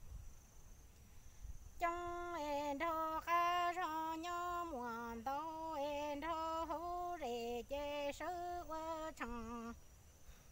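Hmong kwv txhiaj sung poetry: a single unaccompanied voice holding long, level notes with a wavering vibrato, each phrase stepping down in pitch. The singing starts about two seconds in and stops shortly before the end.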